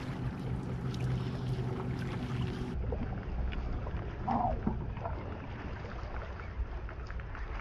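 Wind rumbling on the microphone out on open water aboard a bass boat, with scattered small clicks. A low steady hum runs under it for the first few seconds, and there is a brief short tone about four seconds in.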